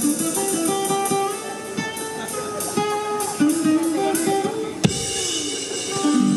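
Live band music led by electric guitar over a steady drum beat, with one sharp click about five seconds in.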